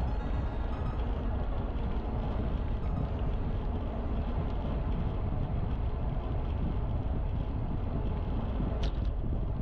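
Low, steady rumble of wind on the microphone and rolling noise while riding a bicycle, with one brief sharp sound near the end.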